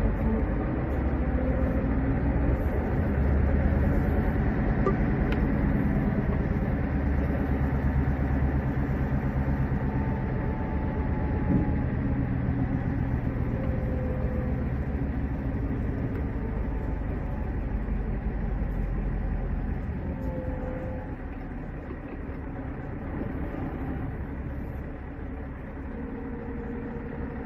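Scania S580's V8 diesel engine running as the truck rolls slowly at low speed, heard from inside the cab as a steady low rumble. It gets somewhat quieter in the last third.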